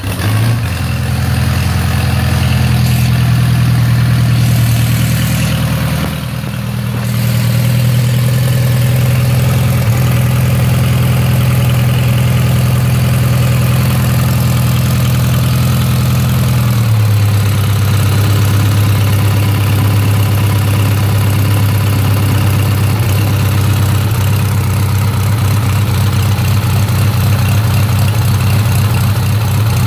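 1917 Henderson four-cylinder motorcycle engine firing on the kick and running steadily, on a little choke after being primed with raw fuel. It dips briefly about six seconds in and settles to a slightly lower, even idle about 17 seconds in.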